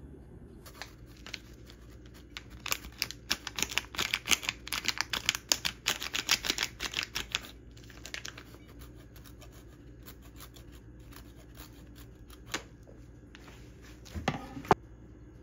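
Hard cheese being grated: quick rasping strokes on the grater for about five seconds, then a few scattered scrapes, and a short clatter near the end.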